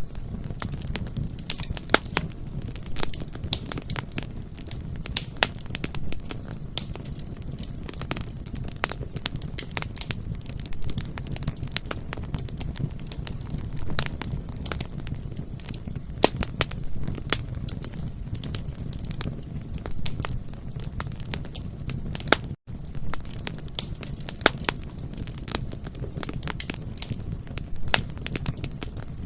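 Bonfire crackling, with frequent irregular sharp pops of burning wood over a steady low rumble of flames. It drops out for a split second about two-thirds of the way through.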